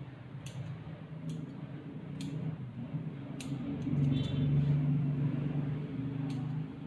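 Electric grooming clippers humming, louder for a couple of seconds near the middle, with light sharp snips every second or so.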